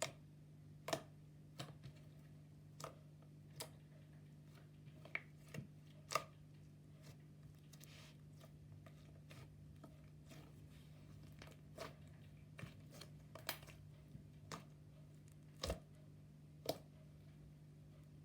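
Slime being pressed and worked by hand, giving scattered sharp clicks and pops at irregular intervals, over a steady low hum.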